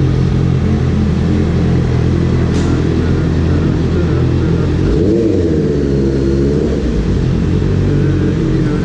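Motorcycle engine running at low riding speed with a steady rumble; about five seconds in, the revs rise and then fall back once as the rider throttles up and eases off.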